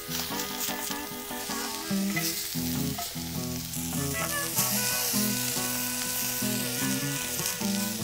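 Elk steaks searing in a very hot cast-iron skillet, a steady frying sizzle.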